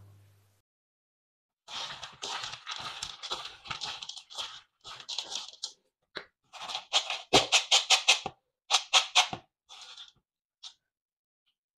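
Dry-roasted peanuts rubbed between the palms in a wooden bowl: a dry rustling crackle as the papery skins come loose and the nuts split into halves. It starts after a short pause, comes in quick rubbing strokes that are loudest in the middle, and ends with a few light rustles.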